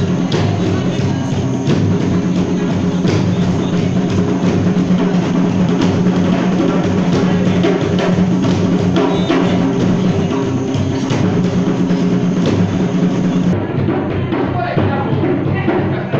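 Dance music driven by hand drums: quick, regular drum strokes over a steady low hum that runs without a break.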